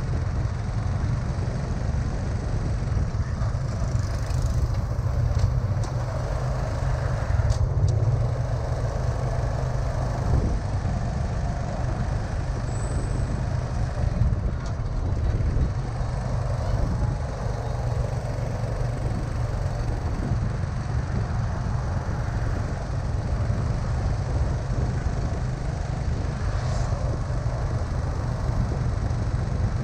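Vehicle noise: a steady low rumble with a faint spread hiss above it and a few small passing sounds.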